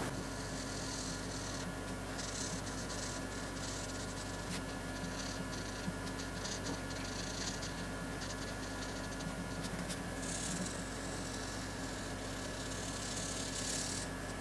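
Red felt-tip marker scratching across paper in short, repeated colouring strokes, over a steady electrical hum.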